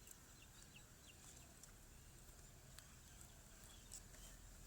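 Near silence: faint room tone with a few faint, short, high chirps from birds in the background.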